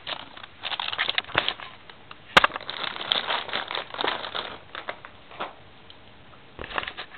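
Anti-static plastic bag crinkling and crackling as a hard drive is pulled out of it, with a single sharp knock about two and a half seconds in.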